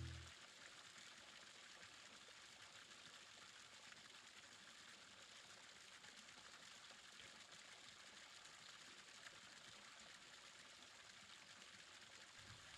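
Near silence: a faint, even hiss, after the last note of the music dies away right at the start.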